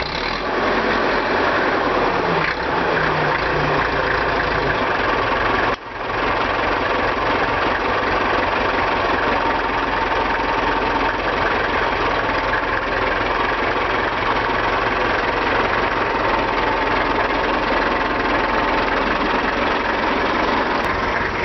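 An engine running steadily at idle, loud and continuous, with a brief dropout about six seconds in.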